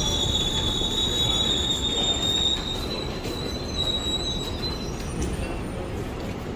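Train wheels squealing on the rails: a high, steady squeal that rises slightly in pitch and fades out about four and a half seconds in, over the continuous rumble of the moving train.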